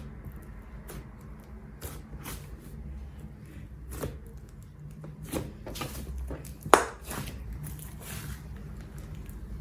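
Slime being squeezed and stretched by hand, giving irregular sticky clicks and pops, with one sharper pop about two-thirds of the way through.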